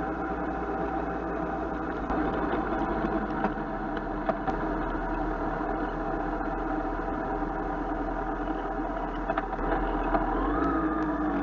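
Motorcycle engine running steadily while riding along a street. Near the end its pitch starts to rise as the engine speeds up.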